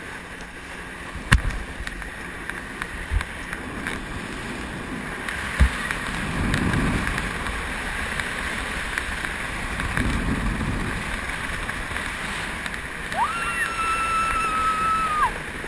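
Boat running over the water, with steady rushing and sloshing water that swells twice and a few sharp knocks early on. Near the end a held high tone sounds for about two seconds.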